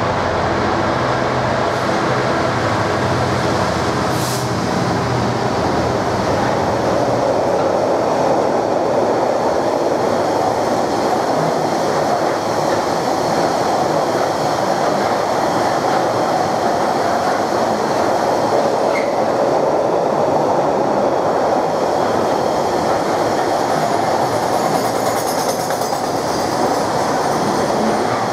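A diesel locomotive's engine drones as it passes close by, then gives way to the steady rumble and clatter of a long container freight train's wagons rolling past. A light, high wheel squeal comes in near the end.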